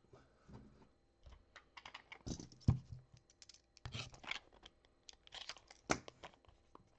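Hands handling and opening a hard plastic card case: irregular small clicks, taps and scratchy scrapes, the sharpest a little under three seconds in and again near six seconds.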